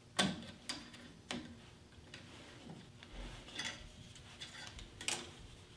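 Small wooden trapezoid blocks clicking and clacking lightly against each other as they are handled and fitted together by hand. The taps are irregular, a handful of them, with the sharpest about a second and a half in and near the end.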